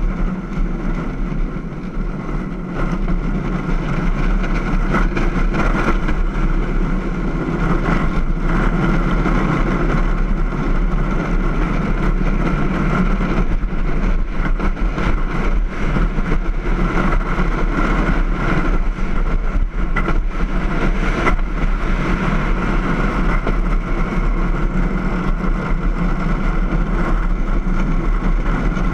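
Steady rumble of a downhill gravity kart's wheels rolling fast over asphalt, mixed with wind rushing over the microphone. It grows a little louder after about three seconds and then holds even.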